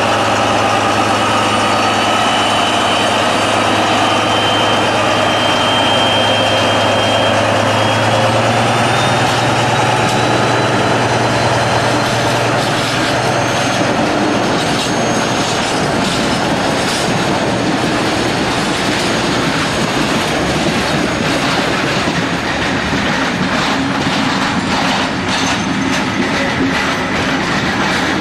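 DB class 204 diesel-hydraulic locomotive working hard, a steady low engine drone with a high transmission whine, fading after about 13 seconds. After that, freight wagons roll by, clattering over the rail joints.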